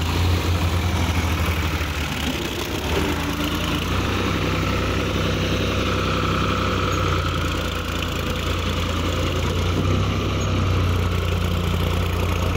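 Tractor diesel engine running steadily at low speed, its note briefly unsettled about two seconds in.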